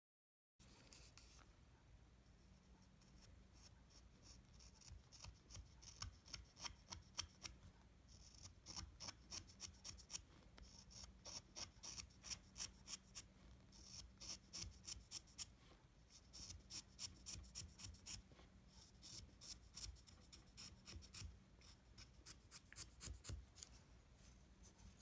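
Hand carving chisel paring the wooden head of a small jizo figure: runs of short, quick scraping cuts, several a second, with brief pauses between runs. These are fine finishing cuts that smooth the head.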